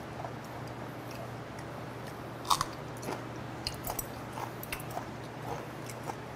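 Close-up chewing of raw yellow stingray sashimi: small wet smacks and crunches come every half second or so, with a sharper double click about two and a half seconds in.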